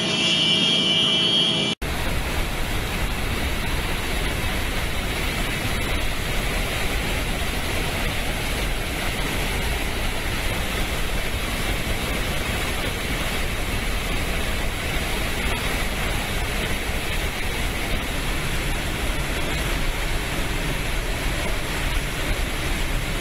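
Steady roar of a massive water discharge from a dam's spillway, a dense rushing noise with a deep rumble underneath, starting at an abrupt cut about two seconds in.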